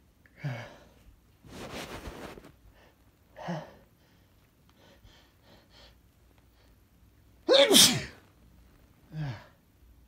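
A man sneezes once, loudly, about three quarters of the way through, the pitch falling. Before it come short voiced catches of breath and a longer noisy breath; another short voiced breath follows about a second after the sneeze.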